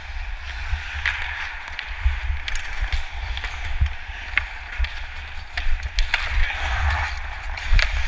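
Ice hockey skates scraping and carving on the rink ice during fast skating, with scattered sharp knocks of sticks and puck, under a low rumble on a helmet-mounted camera.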